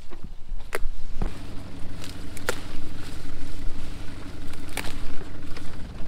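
A few sharp snaps as Cubanelle peppers are broken off their plants by hand. From about a second in, an engine hums at a steady pitch underneath.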